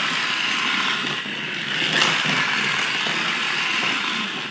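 Battery-operated toy car's small electric motor whirring steadily as it runs along a snap-together plastic track, briefly quieter about a second in.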